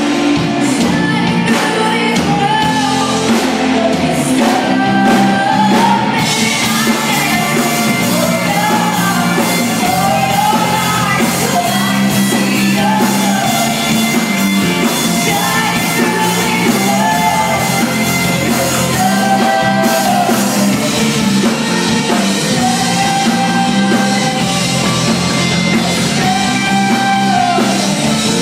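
Live rock band playing: a woman sings lead over electric guitars, electric bass and a drum kit.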